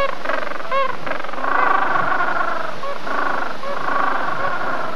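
Penguin colony calling: many overlapping, wavering calls with short arching calls now and then.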